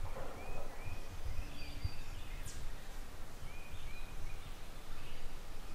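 Spring woodland ambience: a low rumble of wind on the microphone, with a bird's short arched chirps repeating through it.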